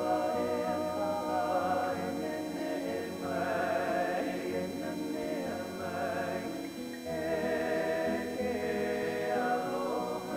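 Music: a choir singing long held notes with vibrato.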